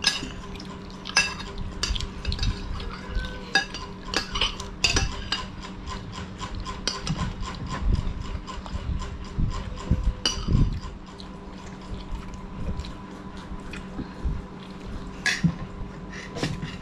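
Metal spoons clinking and scraping against plates and a soup bowl during a meal, with frequent short clinks, over a steady low hum.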